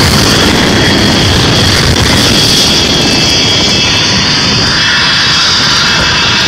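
Loud, steady rush of wind and road noise on a phone microphone held out of a moving car's window.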